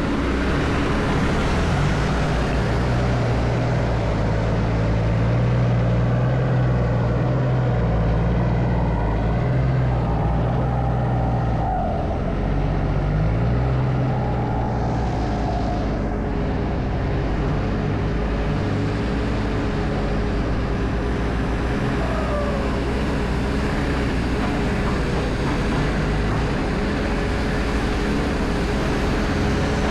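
A heavy vehicle's engine running steadily with a low hum, slightly stronger for the first dozen seconds or so.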